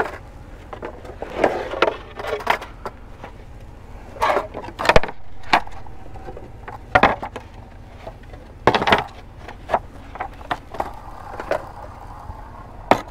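Skateboards being handled: wooden decks clacking and knocking against each other and their trucks as they are picked up and turned over, a string of irregular sharp knocks, the loudest about five seconds in.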